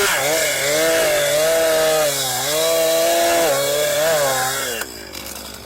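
Chainsaw engine running at high revs, its pitch dipping and recovering several times as it works, then dropping away sharply about five seconds in.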